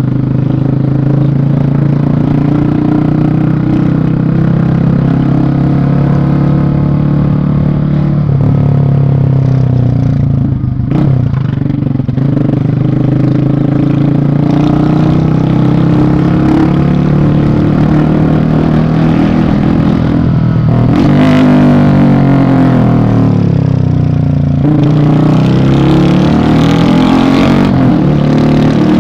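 Yamaha Fazer 250's single-cylinder engine running through a loud exhaust as the motorcycle rides along. Its pitch falls and rises again a few times about three-quarters of the way through, as it slows and accelerates.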